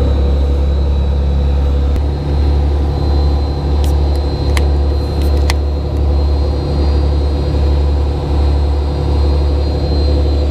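A sportfishing boat's diesel engine running steadily, a deep hum that swells and fades in a slow, even throb. A few faint clicks sound near the middle.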